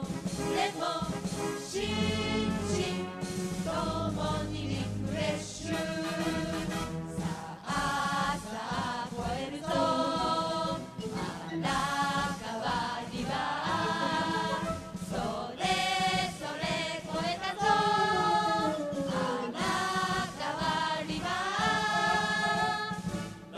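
Background music with choir-like singing voices over a steady low drone.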